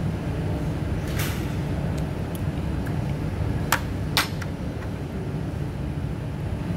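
Two sharp clinks of a metal spoon and a bowl against crockery, about half a second apart midway through, over a steady low rumble.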